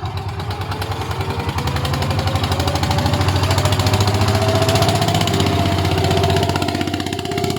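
Engine running with a fast pulsing beat, picking up speed over the first few seconds, then dropping off near the end.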